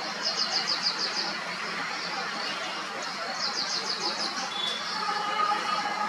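Indian grey hornbill calling: two bouts of rapid, shrill squealing notes, each lasting about a second, the second coming about two seconds after the first.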